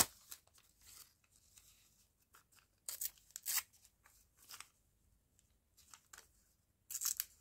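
Paper being handled and torn in short rasping strokes, a handful of brief tears and rustles spread across the few seconds.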